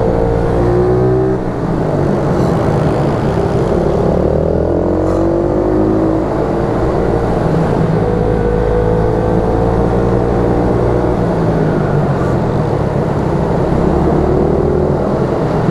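YCF 88 cc mini moto's single-cylinder four-stroke engine under riding load, its revs rising and falling again and again as the throttle opens and closes through the corners.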